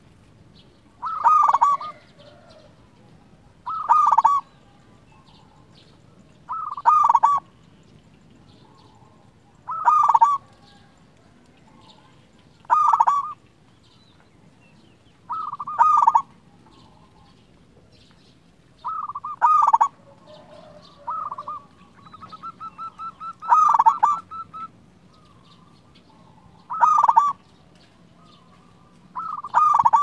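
Male zebra dove (perkutut) singing its cooing song, a loud phrase repeated about every three seconds, with a quick run of short notes a little after the middle.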